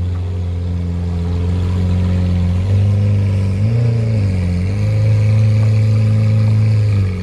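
Lamborghini Aventador's V12 running at low revs as the car creeps forward, with a short rise and fall in revs about four seconds in.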